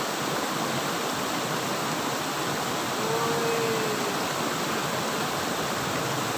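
Water pouring out of a stone culvert and over a low step into a channel: a steady, continuous rushing.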